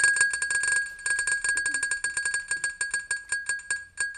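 On-screen spinning-wheel game ticking as it spins: a rapid run of sharp, bell-like clicks that slow steadily as the wheel winds down.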